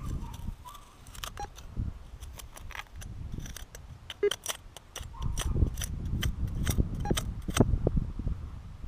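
Scattered small metallic clicks and scrapes with handling rustle: a freshly dug metal relic fragment and soil being handled, with a stretch of low rumbling handling noise from about five seconds in.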